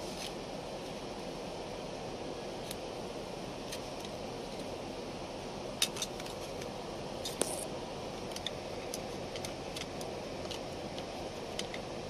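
Small metal parts handled by hand: scattered light metallic clicks and taps, the sharpest a pair of clicks about six seconds in and another about a second later, over a steady low hum.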